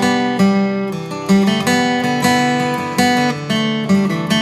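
Background music: acoustic guitar strumming chords, a new strum about once a second.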